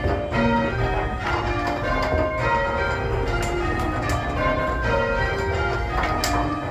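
A ring of six church bells rung full-circle from the ringing chamber, struck one after another in a steady, continuous sequence, each strike leaving a long ringing tone that overlaps the next.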